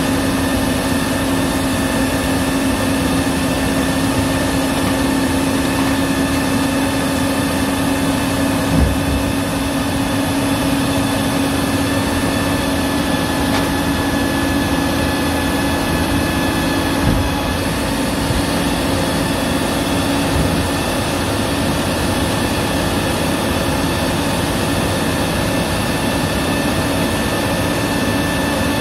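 Old Peterbilt 310 garbage truck's diesel engine idling at the curb, with a steady whine over it that dies away just past the halfway point. Two short clunks come through, about a third of the way in and again as the whine ends.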